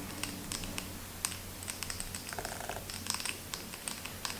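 ASMR tapping: fingernails tapping on a makeup brush handle close to the microphone, a quick, irregular run of small clicks.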